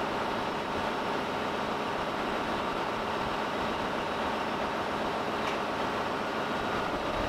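Steady drone of a ship's engine-room machinery, even and unbroken, with a faint tick about five and a half seconds in.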